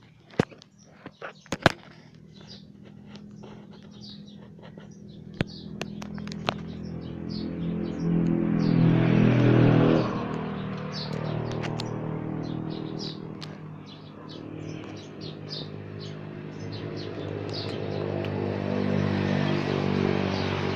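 A car engine running steadily, getting louder around the middle and again near the end, with birds chirping over it. A few sharp clicks come in the first two seconds.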